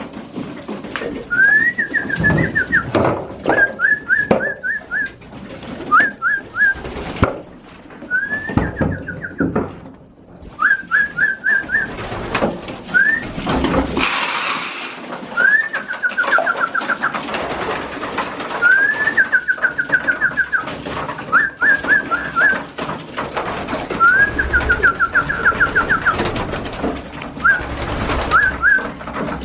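Young racing pigeons in their loft, giving repeated short high whistled calls that rise and break into quick stuttering notes, with cooing, knocks and a brief rustle of movement about halfway.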